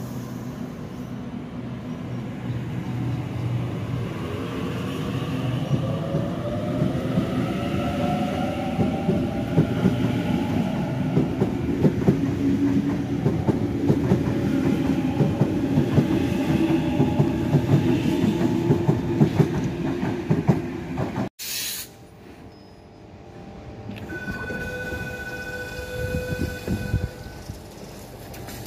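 Sydney Trains double-deck electric train pulling away, its motors whining upward in pitch over a fast clatter of wheels on the rails. The sound cuts off abruptly about three-quarters of the way through, followed by a quieter steady hum and a few steady high tones from a train standing at the platform.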